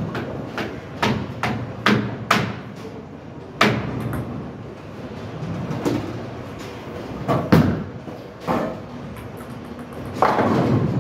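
Bowling alley clatter: a string of sharp, irregular knocks and bangs from bowling pins and lane machinery, the loudest about seven and a half seconds in.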